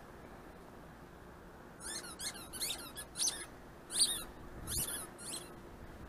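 A quick series of about eight short, high-pitched squeaks, starting about two seconds in and ending near five and a half seconds, over a faint background hiss.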